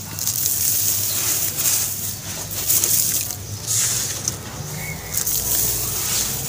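Wet charcoal ash crumbled by hand and dropped into a basin of shallow water: gritty crunching and pattering in uneven bursts.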